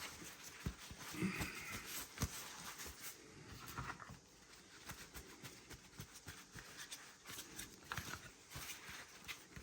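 Faint rustling, rubbing and scattered light clicks as a freshly wet-sanded model and wet hands are wiped dry.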